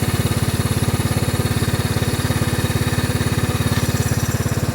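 Cub Cadet HDS 2135 riding lawnmower engine running steadily with an even, rapid pulse. It is being left to warm up after a hard start.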